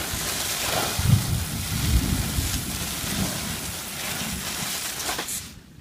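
Steady hiss of water spraying from a garden hose nozzle, with low gusts of wind buffeting the microphone; the spray cuts off suddenly near the end.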